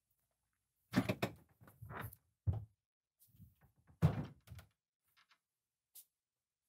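Wooden door being opened and closed: a cluster of clunks and knocks about a second in, then a louder thud with a few more clunks about four seconds in.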